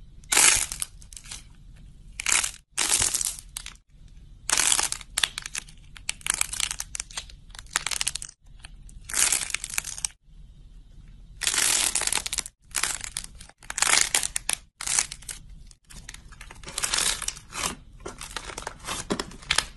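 Marbled modelling clay cracking and crunching as hands squeeze and knead it: more than a dozen irregular bursts of crackling, each under a second long.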